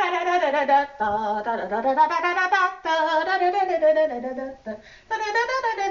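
A woman singing a wordless tune in several phrases of long held, wavering notes.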